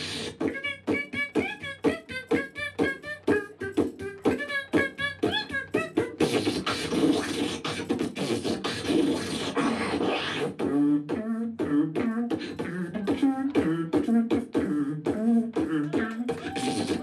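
Live beatboxing into a handheld microphone: a fast run of drum-like hits with warbling pitched sounds over them for about six seconds, then a few seconds of continuous hissing, then a wobbling pitched bass line under the beat.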